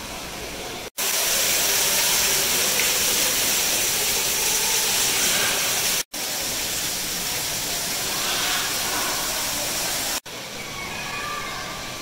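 Steady, loud rushing hiss of background noise, cut off sharply twice at edits, about a second in and about six seconds in; after a third cut at about ten seconds it drops to a quieter hiss with faint bird chirps.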